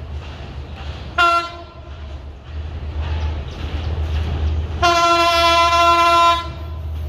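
Diesel locomotive's horn sounding a short blast about a second in, then a long blast of about a second and a half near the end, as the train approaches. Under it a low engine rumble grows steadily louder.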